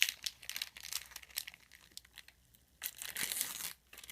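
Trading-card pack wrapper crinkling and being torn open to get at a rookie relic card: crackling for the first second and a half, then a louder rip about three seconds in.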